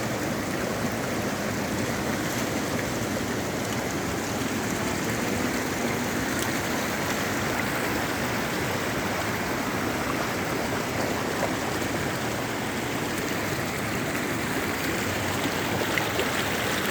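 Small hillside stream swollen by heavy overnight rain, its water rushing steadily.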